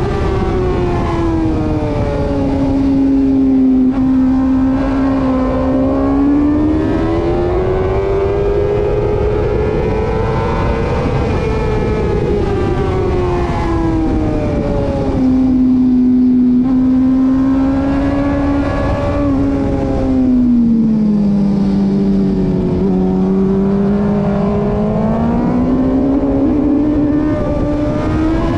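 Motorcycle engine at high revs, its pitch climbing slowly under throttle and dropping three times as it slows for corners, over a constant rush of wind and road noise.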